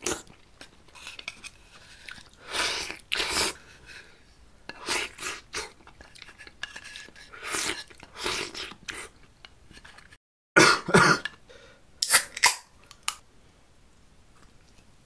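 A man coughing in a string of fits and clearing his throat, having drawn in too hard while sipping piping-hot doenjang jjigae from a spoon. The loudest coughs come a little past the middle.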